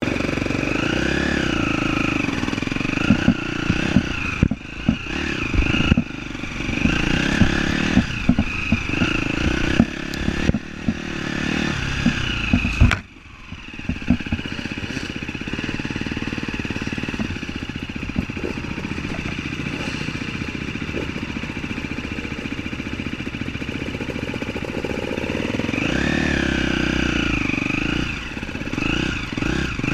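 Off-road vehicle engine running and revving up and down over rough ground, with many clattering knocks. About halfway through comes a sharp click and a brief dip in level, then the engine runs steadier.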